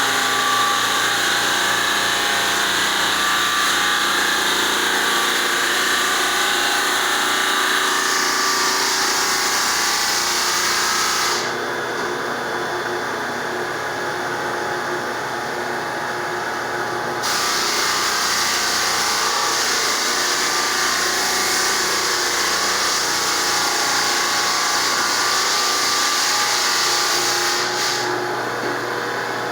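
Belt floor sander with a coarse 36-grit sleeve running and sanding a wood floor: a steady motor drone under a gritty hiss. The hiss drops away for about six seconds in the middle and again near the end, while the motor keeps running.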